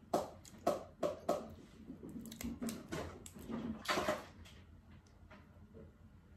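Cooked crab shell being picked apart by hand: a quick run of sharp cracks and clicks over the first four seconds or so, then quieter.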